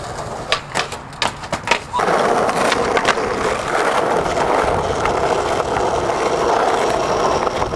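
Skateboard: a few sharp clacks and knocks of the board in the first two seconds, then from about two seconds in the steady rolling noise of urethane wheels on asphalt as the skater pushes, with a few light clicks.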